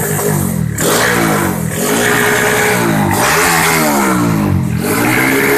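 Honda Supra underbone motorcycle's single-cylinder four-stroke engine in a 130 cc daily-riding setup, revved over and over: the pitch climbs and drops back about four times. The exhaust note is fierce.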